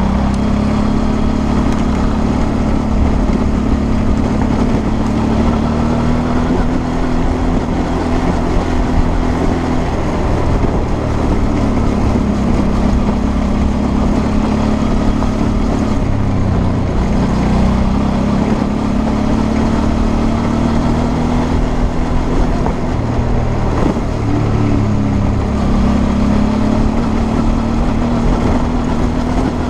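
Suzuki V-Strom 650's 645 cc V-twin engine running at steady riding revs on a gravel track, its pitch dipping and picking up again a few times with the throttle, over a constant noisy rumble.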